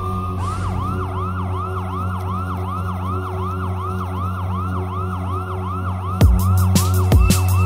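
Electronic background music: a siren-like synth line dips and rises about three times a second over a steady low drone, and drums come in about six seconds in.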